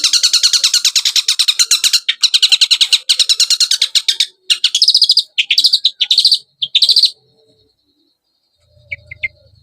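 Long-tailed shrike (cendet) song played as a lure: a very fast, loud chattering run of repeated notes that breaks into short separate bursts after about four seconds, then stops about seven seconds in. A few faint chirps follow near the end.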